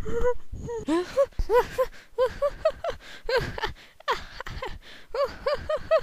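A rapid string of short, high-pitched vocal chirps, several a second, each rising and falling in pitch.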